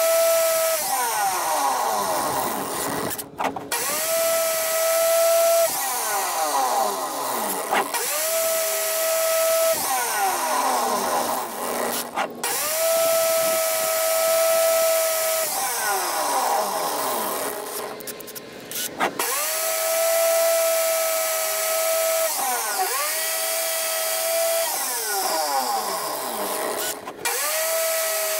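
Angle grinder with a flap disc and a cordless drill running together, grinding a steel bowfishing arrow point spun in the drill chuck against the disc to resharpen it. A steady motor whine with a harsh grinding hiss; about every four seconds the whine falls away in a downward glide and then picks back up.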